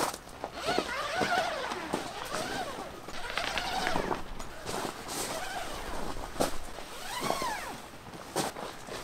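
Birds calling in a run of short notes that rise and fall in pitch, over footsteps on gravel and a few sharp clicks.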